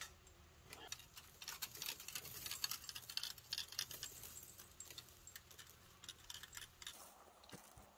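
Faint, irregular metallic clicking and light rattling of barbed fence wire being worked and twisted by hand.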